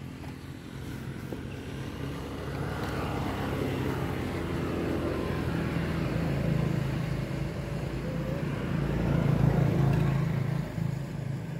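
A motor engine running steadily, growing louder to a peak about nine to ten seconds in, then easing off, like a vehicle passing by.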